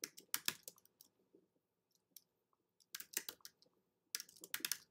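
Computer keyboard typing in short bursts of keystrokes, with pauses between the bursts.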